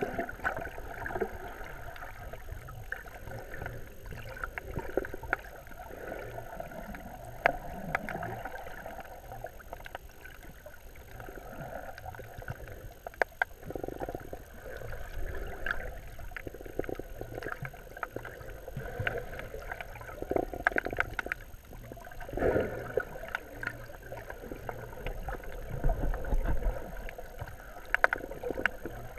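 Muffled water movement heard through a GoPro's underwater housing while snorkeling: uneven sloshing and gurgling with many scattered small clicks and knocks.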